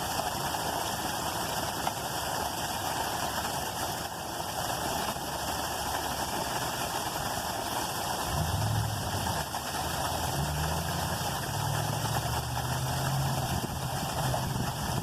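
A steady background rush, joined about halfway through by the low hum of an engine that shifts up and down in pitch in steps.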